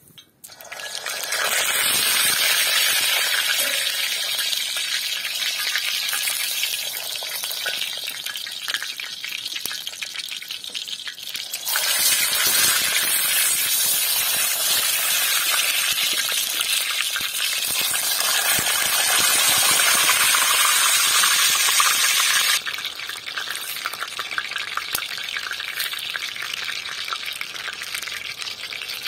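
Hot oil sizzling on a convex iron saj griddle over a wood fire as halved eggplants are laid in and fry. The hiss starts sharply about half a second in, grows louder about twelve seconds in and eases back some ten seconds later.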